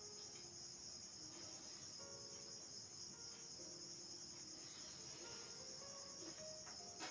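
Faint, steady high-pitched trilling of crickets.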